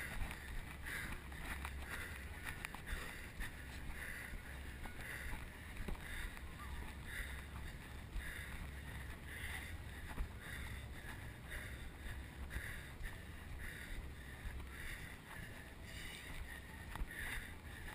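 Muffled movement of a runner on a dirt course, picked up by a chest-mounted GoPro: a steady low rumble with a soft, regular pulse about once a second.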